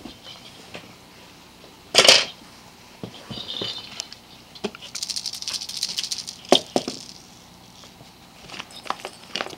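A ferret scuffling among small toy balls on a wooden floor: rattling, rustling and light clicks. One loud rustle about two seconds in is the loudest sound.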